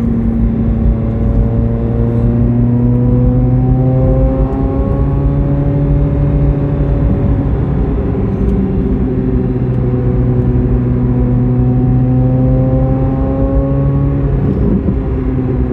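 Corvette C8 Z06's 5.5-litre flat-plane-crank V8 running under steady load while driving, its note climbing slowly in pitch, easing off about halfway through, then climbing again.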